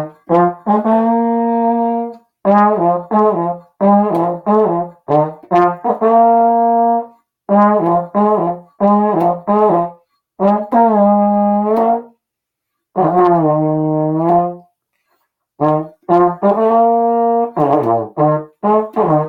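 Slide trombone playing phrase after phrase of quick tongued notes, most phrases ending on a held note, with short rests between. Around the middle, one held note bends down and back up, and near the end a run falls to lower notes. The room gives it a bathroom-like echo.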